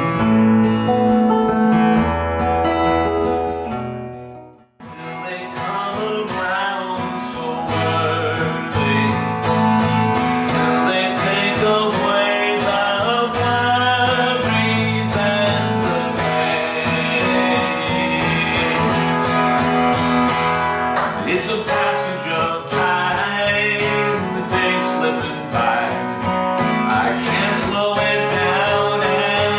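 Acoustic guitar music. The guitar fades out about four seconds in, the sound drops out briefly, and a new plucked-guitar passage starts at about five seconds and carries on.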